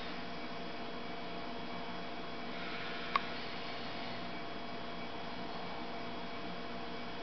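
Steady electrical hum and hiss, with a single sharp click about three seconds in.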